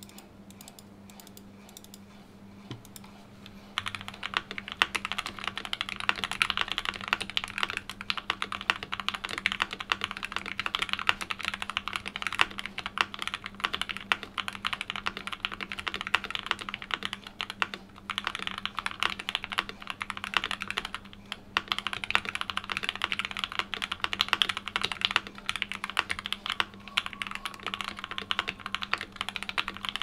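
Fast, continuous typing on a Keychron K4V2 mechanical keyboard with lubed and filmed Gateron Milky Yellow linear switches, a steel plate, tape mod and PE foam, and GMK keycaps. Faint at first, the typing starts in earnest about four seconds in and runs on with only a couple of brief pauses.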